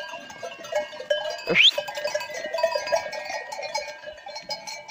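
Many goat bells clinking and ringing together as a herd of goats moves out of its pen, with one brief sharp rising squeal about a second and a half in.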